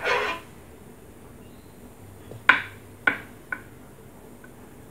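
Stainless steel cooking pot being handled: a brief scrape right at the start, then three sharp metallic clinks about half a second apart past the middle.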